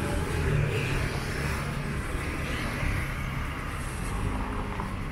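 Street traffic: motorbike and car engines passing over a steady hum of road noise.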